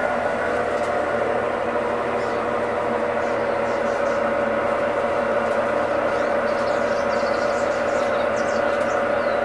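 Brastemp 11 kg washing machine running with a steady, unbroken whine and hum: the noise the owner is showing as a problem. Faint short high chirps sound over it from about two seconds in.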